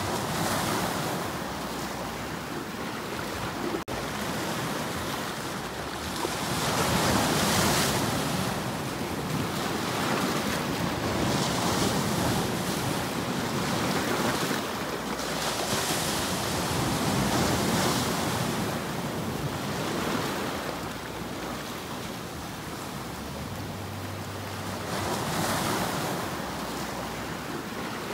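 Sea waves breaking over rocks at the shoreline, the surf swelling and easing back every few seconds.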